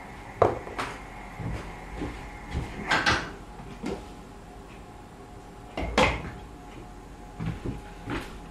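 Kitchen handling noises: a few scattered knocks and clunks of things being moved and set down, the loudest about six seconds in, with a small cluster near the end.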